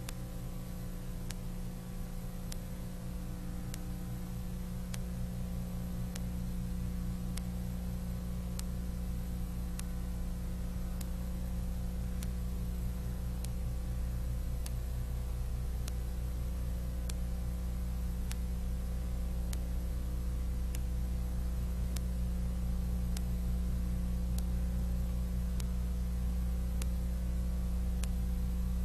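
Steady electrical hum and hiss with faint clicks at fairly regular intervals, the noise floor of an old film transfer with no live sound.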